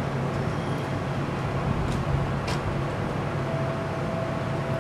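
Steady low hum and rumble of electric trains around a station, with a couple of faint clicks and a thin steady tone coming in about three and a half seconds in.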